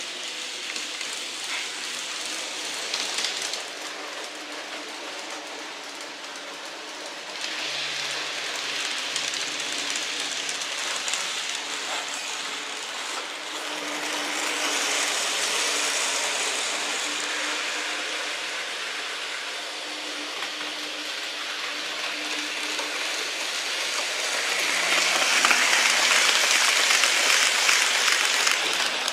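N-gauge model trains running on the layout: a rushing hiss of wheels rolling on rails that swells and fades as trains pass, loudest near the end as one passes close by.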